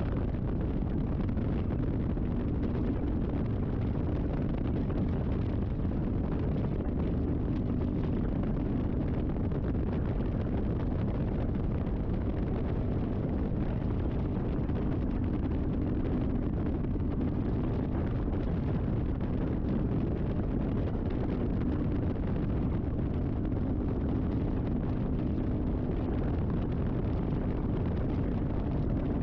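Kawasaki Vulcan S 650 parallel-twin motorcycle ridden at a steady highway cruise. A constant engine drone is mixed into heavy wind rush on the microphone.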